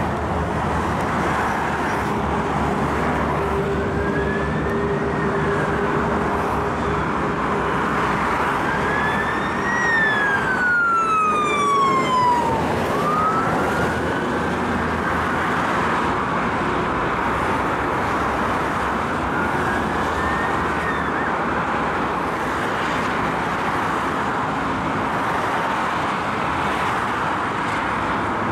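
Fire engine sirens on a slow wail, rising and falling, over steady motorway traffic noise. The sirens are loudest about ten to twelve seconds in, with a long falling sweep as the fire engines pass beneath.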